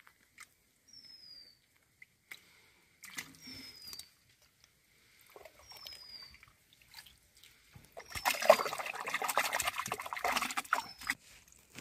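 Hands splashing and squelching in shallow muddy water while groping for fish, in scattered soft splashes at first, then a long stretch of dense sloshing and squelching near the end. A bird's short falling whistle repeats every two to three seconds.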